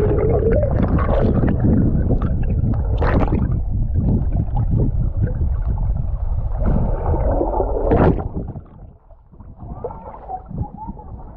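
Water splashing and sloshing close by, over a heavy low rumble, for about eight seconds. It then drops off suddenly to quieter lapping water.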